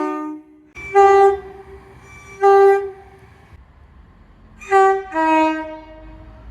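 Train horn: the end of one blast fades out about half a second in, then four short blasts follow, the last two close together.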